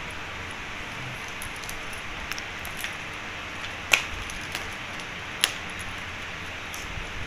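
Stainless steel slingshot frames clinking and ticking against each other as they are handled, with two sharp metallic clinks about four and five and a half seconds in, over a steady hiss.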